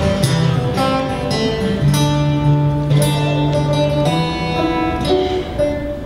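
Acoustic guitar and banjo playing an instrumental duet: picked melody notes over held low notes, with new notes struck about once a second.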